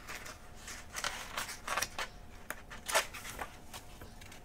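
Paper rustling as a page of a paperback picture book is turned by hand: a run of short swishes, the loudest about three seconds in.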